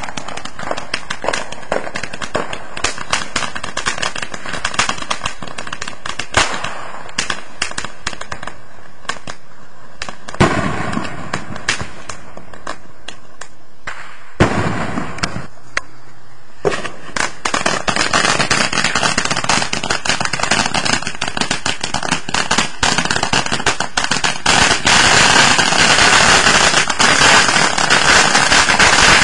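Ground fountain fireworks spraying sparks with a steady hiss and dense crackling. The crackle thins out around the middle, then another fountain takes over a little past halfway and grows louder toward the end.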